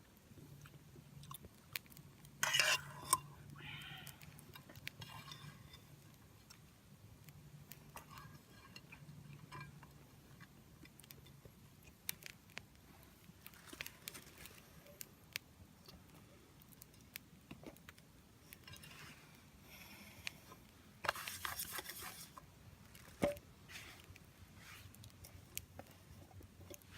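Small wood fire crackling in a compact folding fire grill: scattered sharp pops and snaps, with two louder rustling bursts, about two and a half seconds in and again about twenty-one seconds in.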